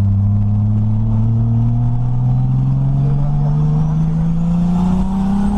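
Turbocharged Toyota 1JZ inline-six pulling under steady acceleration, heard from inside the cabin, its note rising slowly and evenly, with a faint high turbo whistle rising along with it in the second half.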